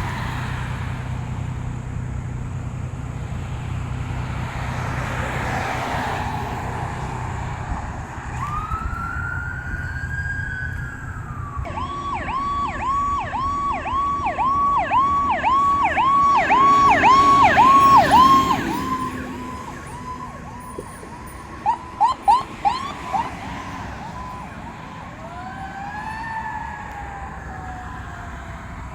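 Fire apparatus siren during an emergency response. It begins with a wail that rises and slowly falls, then switches to a fast yelp of about three cycles a second, which is the loudest part. After some short chirps it ends in a falling wail that fades. A steady engine rumble runs under the first part.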